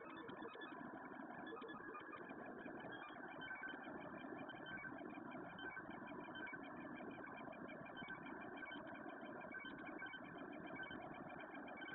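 Desktop 3D printer printing: a faint, steady hum of fans and motors, with the stepper motors giving a high, quickly flickering whine.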